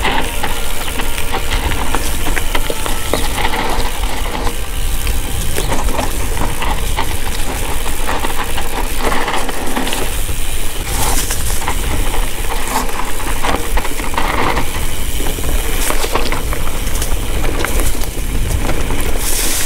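Mountain bike riding down a dirt singletrack: steady wind buffeting on the action camera's microphone under a constant run of clicks and rattles from the tyres and the bike going over bumps.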